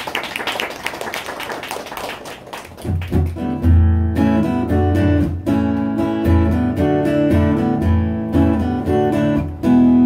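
Steel-string acoustic guitar starting the intro of a song, chords with a strong low bass note ringing out from about three seconds in, after a short burst of noise at the start.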